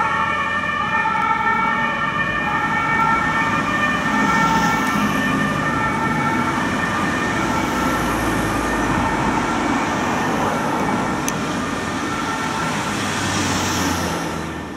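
Two-tone siren of an emergency vehicle, alternating between a high and a low note, over engine and road noise. The siren grows fainter after the first few seconds, and the whole sound starts to fall away near the end.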